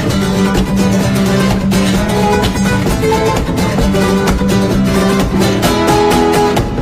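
Music: a song driven by strummed acoustic guitar, with quick repeated strokes over a steady low note.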